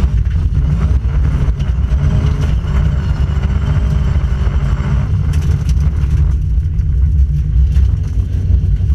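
Volvo 940 rally car's engine and drivetrain, heard inside the stripped cabin, running hard on a gravel stage with a heavy low rumble. The higher engine note falls away about six seconds in, with a few sharp clicks just before.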